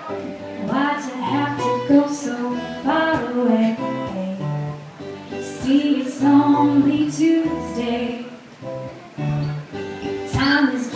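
A woman singing into a microphone, accompanied by an acoustic guitar.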